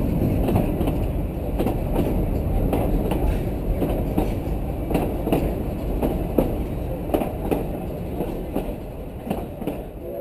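Wheels of a backyard garden-scale model train rolling on the track, heard from a camera riding on one of the cars: a steady low rumble with irregular sharp clicks as the wheels cross rail joints.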